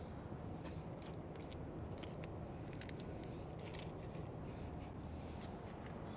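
Faint, scattered metallic clinks of steel wheel lug nuts being handled and set on a semi-truck's wheel studs, over a steady low shop hum.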